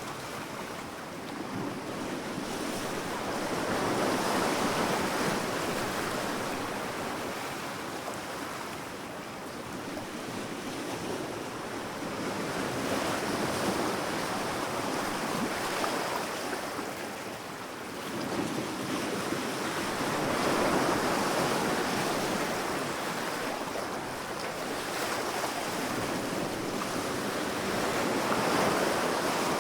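Sea waves washing onto a sandy beach, the surf swelling and ebbing in slow, overlapping surges every few seconds.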